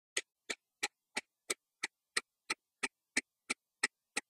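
Quartz wall clock ticking fast and evenly, about three sharp ticks a second.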